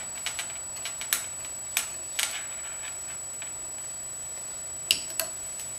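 Scattered light clicks and taps of small metal hardware being handled while the tension spring and turnbuckle are hooked onto a CNC rack and pinion drive plate, the sharpest click about five seconds in.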